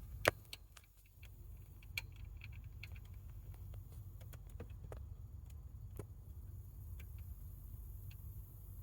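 Scattered light clicks and taps of hand tools and metal parts being handled while fitting a timing belt tensioner, its spring and its bolt. There is a sharp click near the start and more about 2 and 6 seconds in, over a low steady hum.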